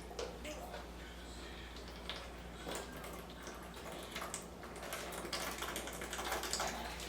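Faint chewing and mouth sounds close to the microphone: scattered soft, wet clicks and smacks over a low steady hum.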